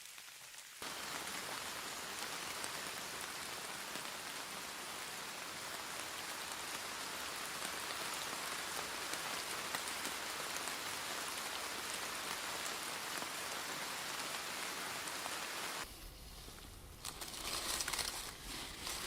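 Steady hiss of rain falling. About sixteen seconds in it stops abruptly and a different, uneven crackling sound with a low rumble begins.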